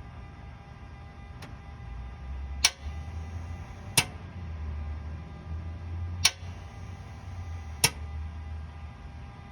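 A 2007 Mitsubishi Outlander that won't start, heard from underneath: four sharp clicks spaced a second or two apart over a low, steady hum that starts about two seconds in and fades out near the end.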